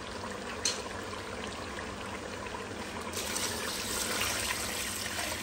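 Water poured from a jug into an aluminium pressure cooker of fried mutton trotters in oil and masala, splashing in about three seconds in. This is the water added to make the broth.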